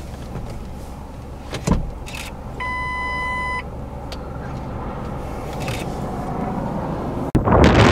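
Car engine idling under steady background noise, with a single click and then a one-second electronic beep early on. Near the end the sound cuts abruptly to loud wind buffeting the microphone.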